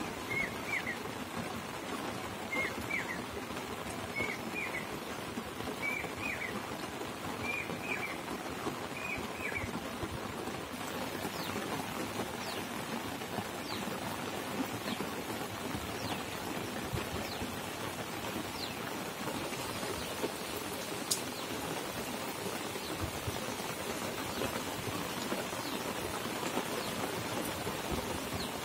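Steady rain falling on wet ground and puddles. A bird repeats a short call about every second and a half for the first ten seconds or so.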